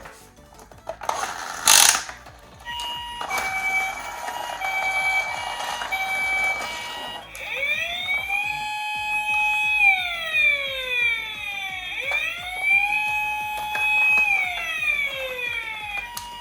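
Toy emergency vehicle's electronic siren. It starts as a two-tone hi-lo ambulance siren, then about 7 seconds in switches to a wailing siren that rises, holds and falls, twice. A short rustle of handling comes just before the siren starts.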